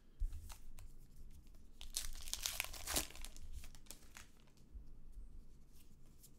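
Crinkling and tearing of a baseball card pack's wrapper, loudest about two to three seconds in, with light clicks and rustles of cards being handled.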